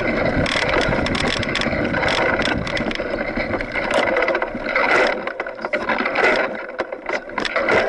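Mountain bike riding over a rough dry dirt trail, heard from the handlebars: a steady rush of tyre noise with dense rattling clicks from the bike jolting over the ground. The deep rumble fades about five seconds in.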